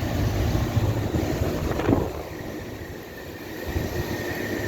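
Outdoor air-conditioning condenser unit running: a steady low hum with a thin high whine joining about two seconds in, and a single knock just before it.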